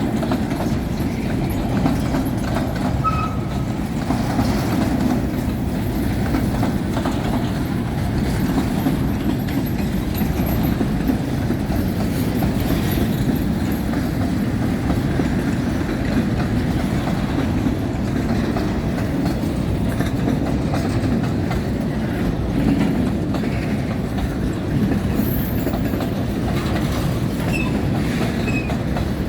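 Belgrano Cargas freight train's wagons rolling past, a steady loud sound of steel wheels on the rails.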